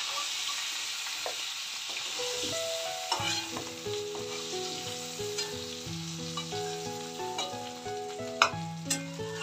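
Prawns sizzling in hot oil in a steel kadhai as a steel spatula scoops them out. There are a few sharp clicks of the spatula against the pan near the end.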